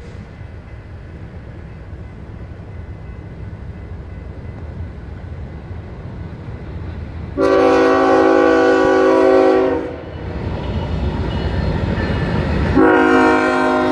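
BNSF freight train approaching, its diesel locomotives' low rumble growing louder. The locomotive air horn sounds a chord of several notes in a long blast about seven seconds in, and a second long blast starts near the end as the locomotives pass.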